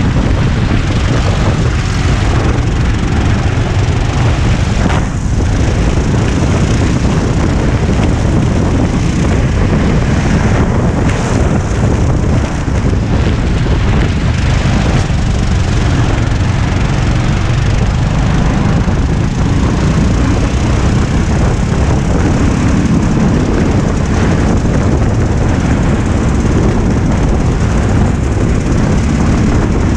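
Go-kart engine running hard at racing speed, heard onboard, with heavy wind noise on the microphone.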